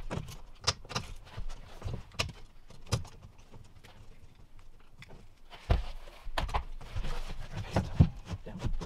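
A large, thin barn-board sheathing panel being handled and pressed against the wall framing: scattered knocks, taps and rattles of the flexing sheet, with a quieter stretch in the middle, a cluster of knocks just before six seconds in and the sharpest knock about eight seconds in.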